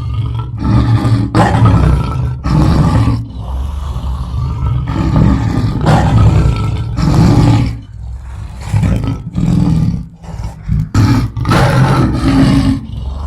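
Lion roaring: a long run of deep calls, one after another, each lasting up to about a second and a half, with short breaks between them.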